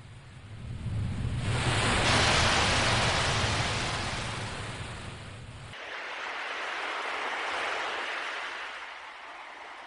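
Ocean waves breaking and washing back, two swells, the first louder, with no foghorn or gull calls.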